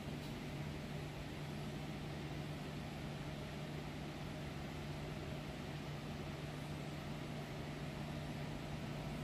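Steady hum of a yacht's onboard machinery: a constant low drone under an even hiss, unchanging throughout.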